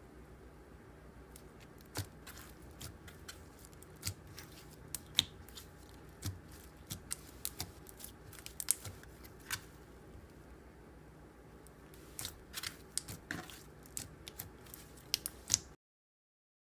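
Clear slime being worked, giving irregular sharp clicks and pops.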